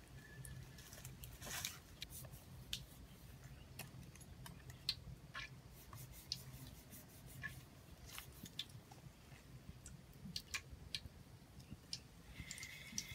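Faint, scattered clicks and scrapes of a kitchen knife working on a raw fish in a plastic colander, scaling and cutting it.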